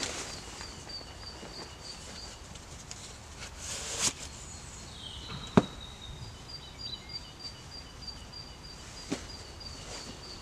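Nylon sleeping bag rustling as it is smoothed out and arranged by hand, with one sharp knock about halfway through and a fainter one near the end. A small bird repeats short high notes in the background.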